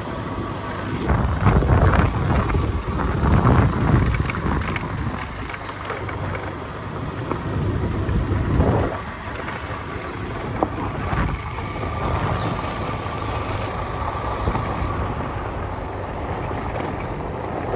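Wind rushing over the microphone of a moving motorcycle, with the bike's engine running steadily underneath. The wind gusts are strongest in the first few seconds and again about halfway through.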